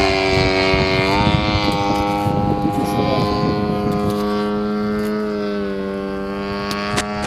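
Big Hots RC model airplane's engine and propeller droning steadily in flight, the pitch wavering slightly as it manoeuvres.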